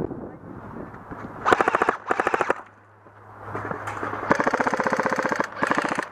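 Airsoft rifle firing on full auto in four rapid bursts: two short ones, then after a pause a longer burst and a brief final one.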